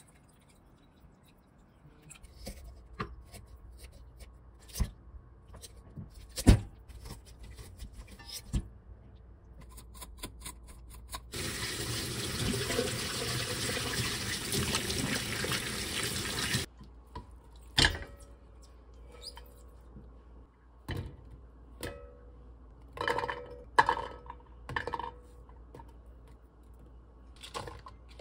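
A kitchen tap running into a stainless-steel sink for about five seconds in the middle, splashing over a whole raw chicken as it is rinsed. Before and after it, scattered knocks and clicks, the loudest a sharp knock about six seconds in.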